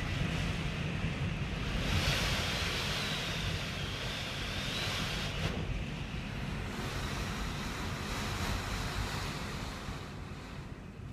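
Typhoon wind and heavy rain gusting hard, the wind buffeting the microphone with a low rumble over a steady rushing hiss. A gust swells about two seconds in with a faint high whistle, and the storm eases a little near the end.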